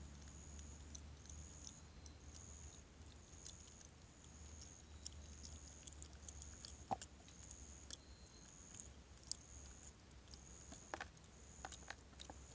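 Faint clicks and crunches of a monk saki monkey chewing food, a few sharper ones standing out. Behind them a faint high-pitched chirp repeats about every two-thirds of a second over a low steady hum.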